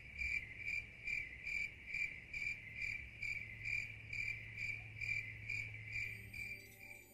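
Cricket chirping: a high, even chirp repeating about two and a half times a second over a faint low hum, fading out near the end.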